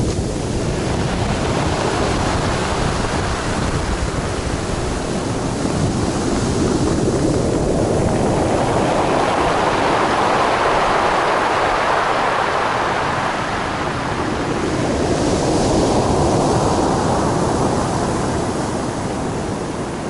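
Stormy sea surf on a pebble beach: waves breaking and washing up over the stones in a continuous rush, swelling about halfway through and again a little later.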